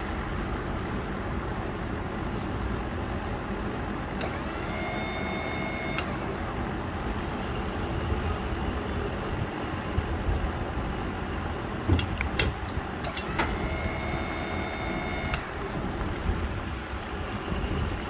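The 12-volt electric hydraulic pump of a homemade truck crane running twice, about two seconds each time, with a high motor whine as it drives the converted bottle-jack cylinder to raise the boom. A few sharp clicks come just before the second run, over a steady low rumble throughout.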